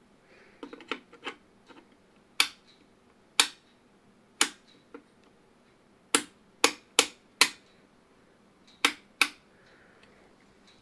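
About ten sharp clicks at irregular intervals as a screwdriver tip is touched to the input of a rebuilt vacuum-tube amplifier, a quick test of whether the amplifier responds.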